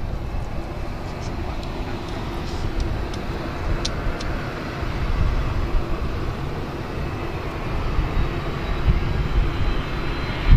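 Jet noise from a McDonnell Douglas MD-82's rear-mounted Pratt & Whitney JT8D turbofans on final approach: a steady rumble and hiss, with a thin high whine coming in over the last few seconds as the airliner draws closer.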